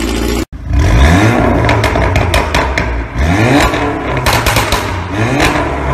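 Volkswagen Golf R's turbocharged four-cylinder exhaust revved in three quick blips about two seconds apart, each rising in pitch and followed by rapid pops and crackles on the overrun. Before that, half a second of another engine running cuts off abruptly.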